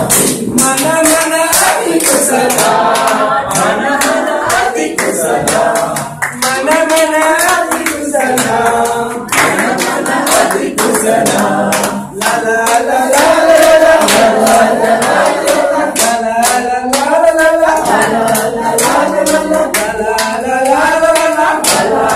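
A group of young people singing together in unison, clapping their hands along with the song.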